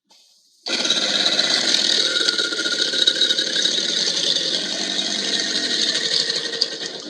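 Kaiju monster sound effect: a loud, harsh, grinding cry that starts abruptly and holds for about six seconds before cutting off.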